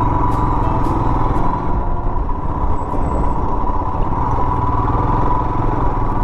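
Royal Enfield Himalayan's single-cylinder engine running steadily while the motorcycle is ridden along the road.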